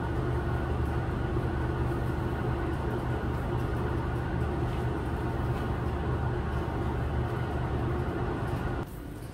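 Steady low mechanical hum of a running motor or machine, with a straw broom sweeping a concrete floor beneath it; the hum cuts off suddenly near the end.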